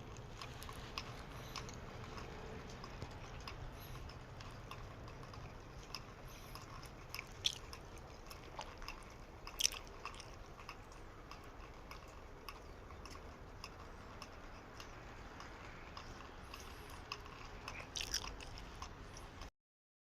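Faint steady background hiss with many small scattered clicks and crackles, a few sharper ones among them, cutting off abruptly near the end.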